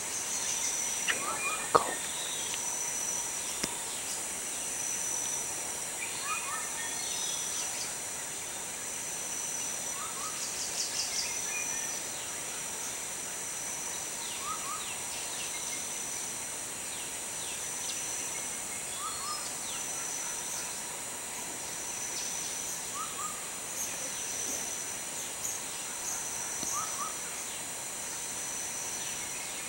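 Tropical forest ambience: a steady high-pitched insect drone, with a bird's short chirps repeating every three to four seconds. A single sharp click sounds about two seconds in.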